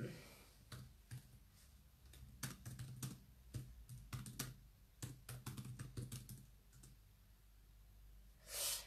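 Typing on a computer keyboard: irregular soft key clicks, some in quick runs, with pauses between. A short hissing rush near the end.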